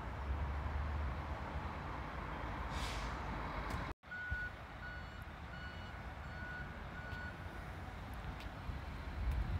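Vehicle reversing alarm beeping, about six short single-pitched beeps roughly two-thirds of a second apart, starting about four seconds in and fading away, over a low steady rumble of traffic and wind.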